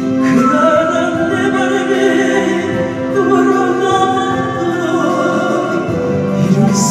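A song: a voice sings a sustained melody over musical accompaniment.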